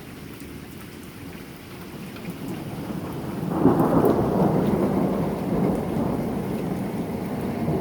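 Steady rain falling, with a roll of thunder that swells in after a couple of seconds, is loudest about four seconds in, and then slowly dies away.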